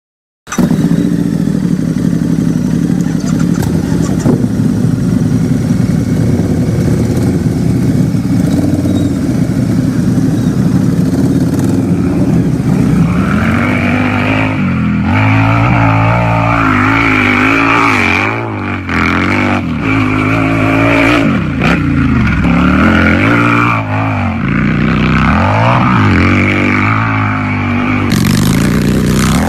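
Harley-Davidson V-twin motorcycle engine idling steadily, then from about halfway through revved again and again, its pitch rising and falling with each blip of the throttle.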